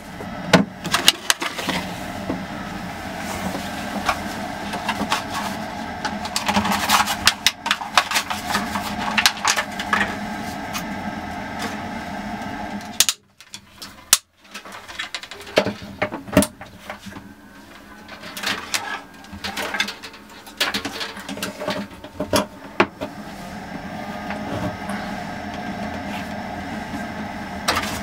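A steady mechanical hum under frequent small clicks, taps and rattles of hands working small plastic parts. In the second half these are a 12-volt socket splitter being pushed into an outlet and its paper packaging being shuffled.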